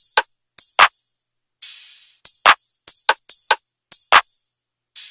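Electronic drum-machine beat: short, sharp drum hits with dead silence between them. A long hissing cymbal-like crash comes back about every three and a half seconds.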